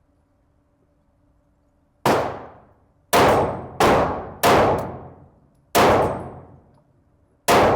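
Six pistol shots fired at an uneven pace, each a sharp crack that rings out for about a second.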